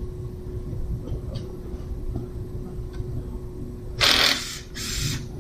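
Cordless power tool run in two short bursts about four seconds in, a longer one then a shorter one, driving 10 mm bolts on the front of an engine block.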